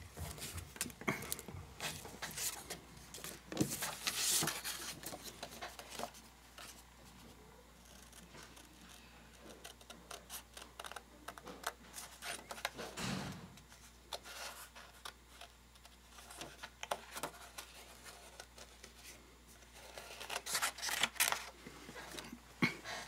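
Scissors snipping paper in quick runs of short cuts, with paper rustling and being shuffled; the cutting is busiest in the first few seconds and again near the end, quieter in between.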